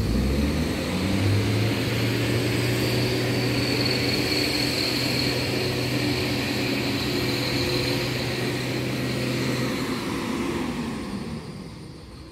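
A bus's diesel engine revs up in the first second and is held at a steady raised speed with a high whine over it. It drops back about ten seconds in and fades.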